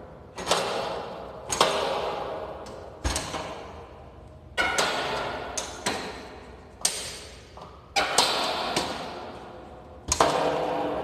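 Clamp latches on the door of a CCC BK2000 tent washer being flipped open one after another: about ten sharp metallic clanks, each ringing on for about a second.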